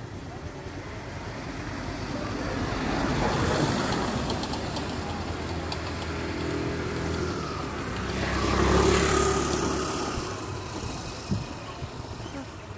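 Road traffic passing: two vehicles go by one after the other, each swelling up and fading away, with an engine note heard on the second about nine seconds in.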